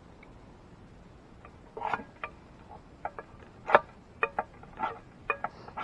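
A series of irregular sharp clicks and knocks, about a dozen over four seconds, with the loudest nearly four seconds in: hard objects being handled and set down.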